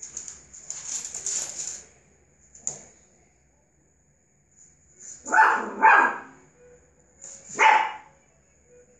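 Puppy giving three short barks, two close together about five seconds in and one more near the end, after a brief stretch of rustling at the start.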